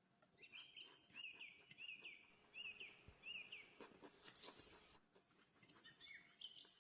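Faint bird calls: a run of about six short, repeated chirps, roughly two a second, with a few faint clicks around them.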